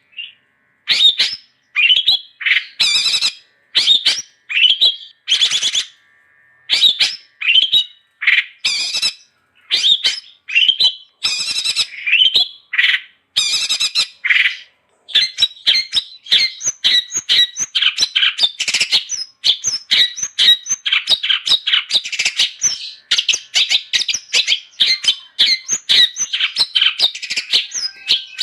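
Long-tailed shrike (cendet) singing. It gives short separate calls with gaps between them, then about halfway through breaks into a fast, unbroken chatter.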